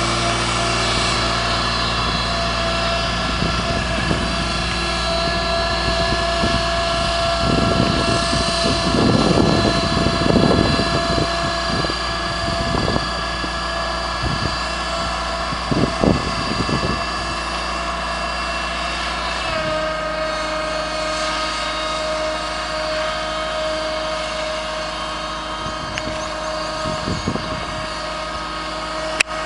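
Land Tamer amphibious vehicle's engine running steadily as it moves across the water, a drone made of several steady tones. Its note shifts slightly about two-thirds of the way through, and a rushing noise swells over it for a few seconds about a third of the way in.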